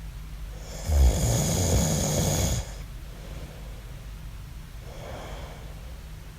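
A man snoring in his sleep: one loud snore lasting under two seconds about a second in, then a much softer breath near the end.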